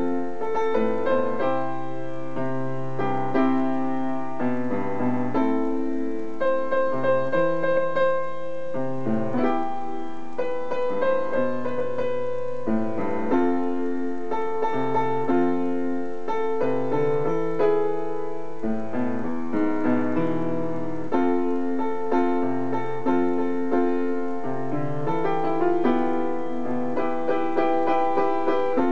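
Upright piano played solo, playing without a break: low bass notes held under chords, with a melody line on top.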